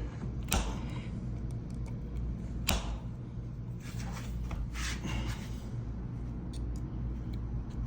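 Handling noise as the stiff cover of a smart lock deadbolt is worked off the door: a few short clicks and scrapes, the sharpest about three seconds in, over a steady low hum.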